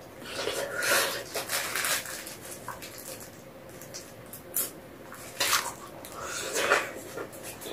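Close-miked mouth sounds of eating braised chicken feet: wet chewing, sucking and lip smacks in irregular bursts.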